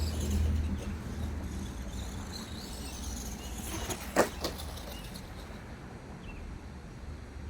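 Electric drive of a 1/10-scale FMS Ford F100 High Roller RC monster truck running, with a motor whine that is loudest at the start and fades away. A short sharp noise about four seconds in is the loudest sound.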